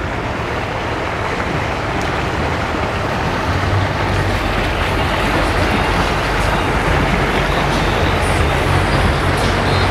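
Outboard boat engines running at low speed, a steady low rumble that grows louder about four seconds in as a boat with twin outboards comes close.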